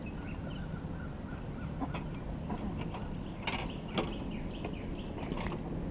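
Fishing reel being cranked, with light mechanical clicking and ratcheting and a few sharper clicks about three and a half and four seconds in.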